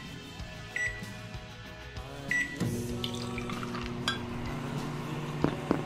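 Electronic machine sound effects: two short high beeps, then about two and a half seconds in a steady low electrical hum starts and holds, with a few sharp clicks over it.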